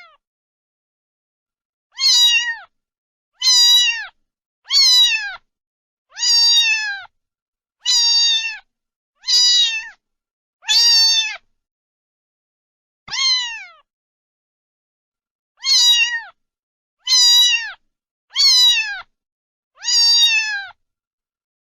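Domestic cat meowing over and over, about a dozen short meows each falling slightly in pitch, roughly one every second and a half, with a couple of longer pauses in the middle.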